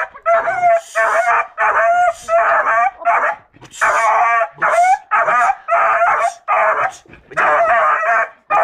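Young beagle barking and baying over and over, about a dozen high, ringing barks in quick succession, at a wild boar head held up in front of it: a hound giving tongue at boar.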